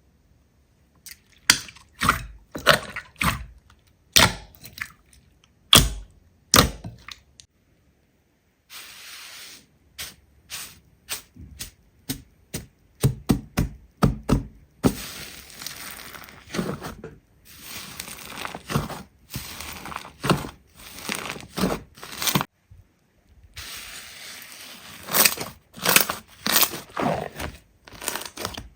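Slime being squeezed and pressed by hand, giving sharp crackling pops and clicks, sparse at first and then quicker and denser, with brief pauses where one clip gives way to the next.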